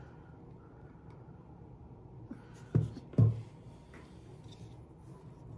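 Quiet handwork on a tabletop: acrylic paint squeezed out and spread on bare wood with a foam brush, a faint scraping. A little past halfway, two quick knocks close together, as of the plastic paint bottle and brush being set down on the table.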